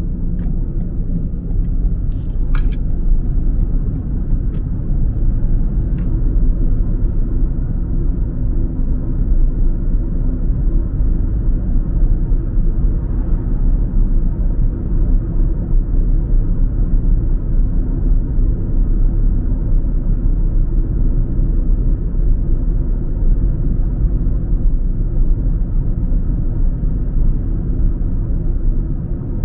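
Car driving along the road: a steady low rumble of engine and tyre noise. A few faint clicks come in the first few seconds.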